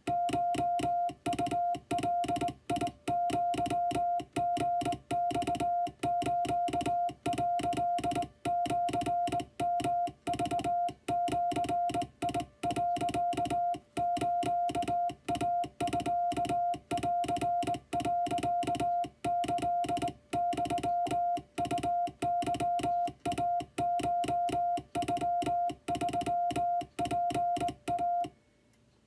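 Japanese Wabun Morse code sent by hand on a straight key: a steady mid-pitched beep keyed on and off in dots and dashes at a brisk, even pace, with a click at each keying. The sending stops briefly near the end.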